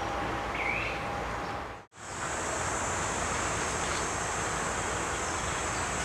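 Outdoor ambience with a steady rushing background. After a brief cut about two seconds in, insects keep up a steady high-pitched drone of several held tones. A single short chirp sounds near the start.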